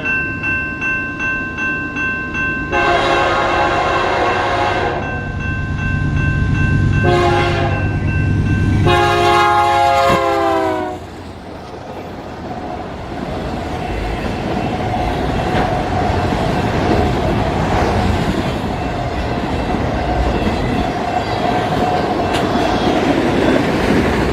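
A BNSF freight locomotive's horn sounds three blasts at a road crossing, long, short and long, and the last one drops in pitch as the lead locomotive passes at speed. The train then runs by at about 70 mph, its wheels rumbling and clattering over the rails.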